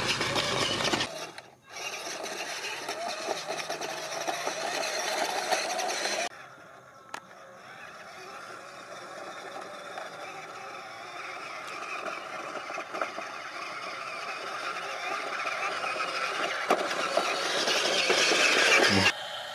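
Small electric motors and gears of a radio-controlled model truck whirring, in several shots cut together. A steady whine grows gradually louder through the second half.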